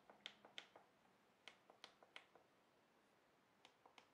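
Real mechanical push buttons on the King Performance chess computer's control panel clicking as they are pressed: short, sharp clicks in three quick runs, a few at the start, more about a second and a half in, and a few near the end.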